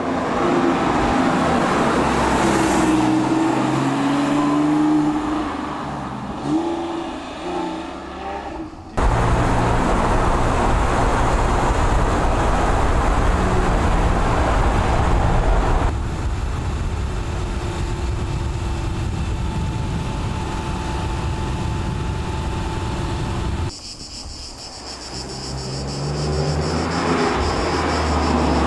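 Porsche 911 Speedster (997)'s 3.8-litre flat-six engine accelerating and running through the gears, its pitch rising and falling with the shifts. The sound changes abruptly a few times as the shots cut, with one stretch of dense, low engine and road noise from close alongside.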